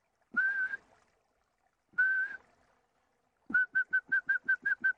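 A man whistling a single steady, high note: two short whistles about a second and a half apart, then a quick run of about ten short whistles near the end.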